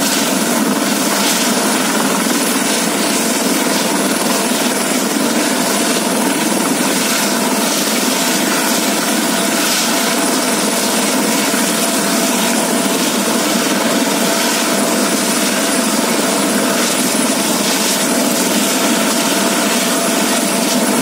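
Eurocopter EC130 B4 helicopter running on the ground with its main rotor turning: a steady, loud turbine whine over the rotor's rushing noise, holding the same level throughout.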